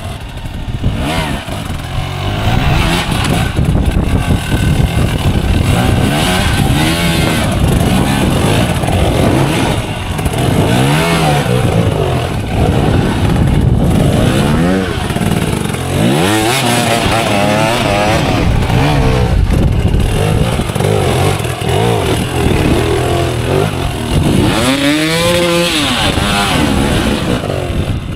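Hard enduro dirt bike engine revving hard and easing off again and again, its pitch climbing and dropping in repeated surges, with sharp rising revs about halfway through and again near the end.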